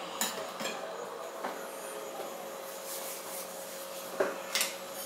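Light clinks of stainless steel bowls being handled and set down, a few in the first second and a half and two more about four seconds in, over a steady low hum.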